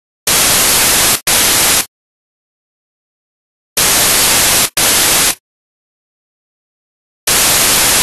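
Loud bursts of white-noise static with dead silence between them. They come in pairs, a burst of about a second followed closely by a shorter one, about every three and a half seconds. A third burst starts near the end.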